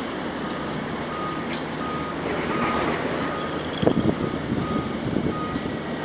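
A vehicle's reversing alarm beeping steadily, a little more than one beep a second, over the low rumble of machinery. A short clatter about four seconds in.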